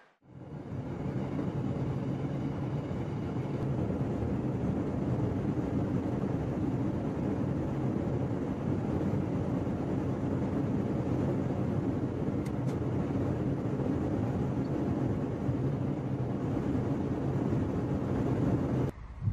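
Steady running noise heard inside a carriage of the Haramain high-speed electric train while it travels: an even low rumble with a hiss above it.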